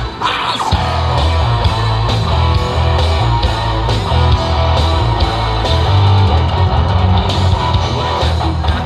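Live rock band playing loudly: electric guitar over drums and heavy bass, in a heavy, metal-style passage.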